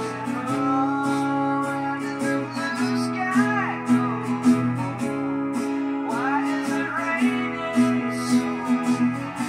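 Acoustic guitar strummed in a steady rhythm, its chords ringing on between strokes.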